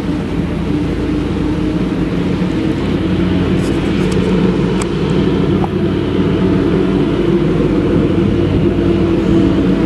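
Claas Jaguar 970 forage harvester with an Orbis 750 maize header chopping maize and blowing it into a trailer, together with the engines of Case IH tractors pulling silage trailers alongside. The engines and chopper run as one steady, loud drone.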